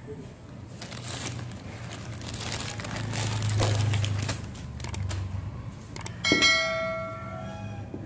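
Clear plastic bag crinkling as a new steering rack end is unwrapped, then a sharp metal clink about six seconds in that rings on like a bell for a second or so before fading.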